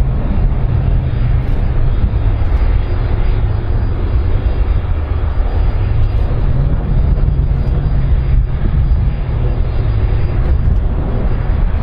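Airbus A310-304 airliner's General Electric CF6-80C2 turbofan engines running as the jet moves along the runway: a loud, steady, deep rumble.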